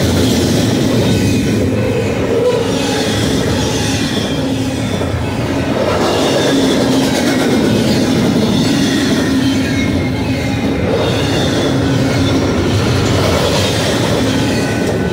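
Double-stack intermodal freight cars rolling past close by, with a steady loud rumble and clatter of steel wheels on rail. Squealing tones from the wheels rise and fade through it.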